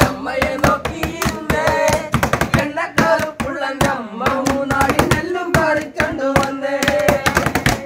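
A group of men singing together, the main voice holding long wavering notes, over a fast rhythm beaten out by hand.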